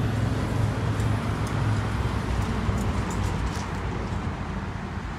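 Steady, kind of loud road traffic noise: the rumble of cars passing on a nearby street, with a few faint high ticks in the middle.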